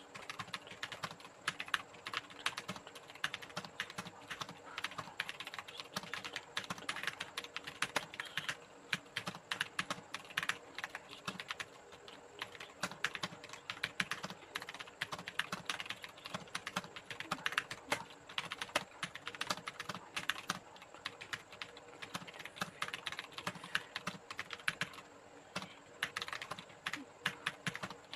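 Fast, continuous touch-typing on a computer keyboard: a rapid, steady stream of key clicks.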